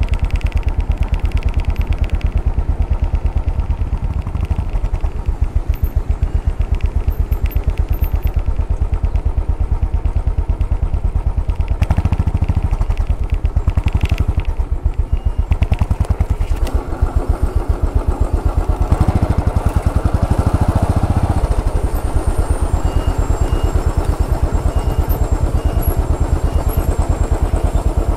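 Royal Enfield Bullet 500 EFI's single-cylinder engine running with an even, rapid beat: idling in traffic and pulling away, with louder stretches as it accelerates about halfway through and again around two-thirds through.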